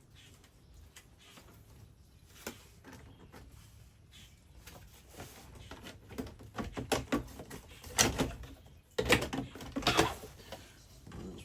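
Parts and tools being handled during the converter install: scattered clicks and knocks that get busier in the second half, with the loudest knocks about eight, nine and ten seconds in.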